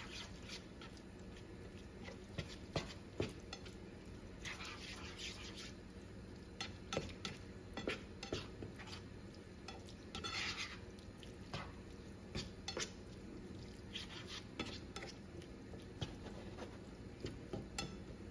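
Black plastic slotted spatula stirring ground beef and diced tomatoes in a nonstick skillet: irregular light taps of the spatula against the pan, with a couple of short scraping swishes.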